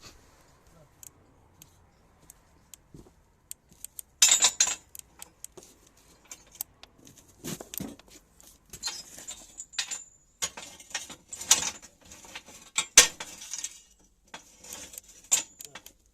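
Irregular metallic clinking and sharp crackling clicks in short bursts, with spells of quiet between them.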